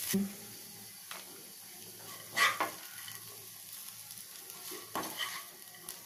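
Spoon scraping and knocking against a cooking pan as cooked fenugreek-leaf palya is scooped out into a serving bowl: a few separate knocks, the loudest about two and a half seconds in, over a faint steady hiss.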